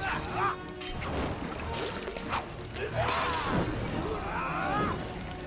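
Film action soundtrack: music under loud crashing and shattering impacts, with men screaming and crying out in rising-and-falling wails near the middle and end.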